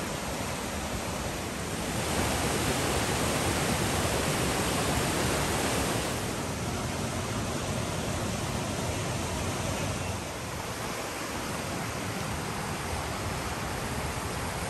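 Rushing whitewater of the Little Firehole River cascading over boulders below Mystic Falls, a steady roar of water. About two seconds in it grows louder for a few seconds, then settles back a little.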